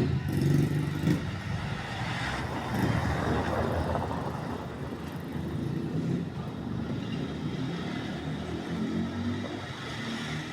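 Vehicle engine and road noise: a steady low rumble, with a louder swell about two to three seconds in.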